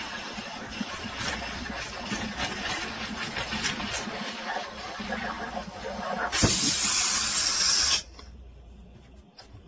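Espresso machine steam wand hissing and sputtering, with many small crackles, then a louder full blast of steam for about a second and a half that cuts off abruptly.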